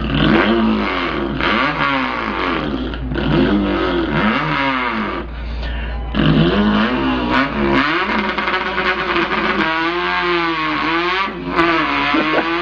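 A man's voice imitating an import car's engine, revving in repeated rising and falling pitch glides like an engine pulling through the gears, with a couple of short breaks.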